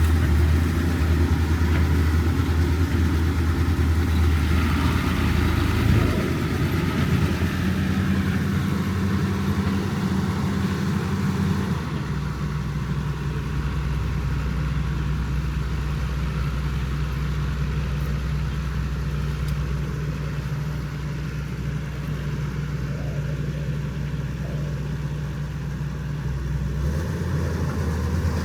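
Vehicle engine running steadily at a low, even pitch, its tone changing abruptly a few times.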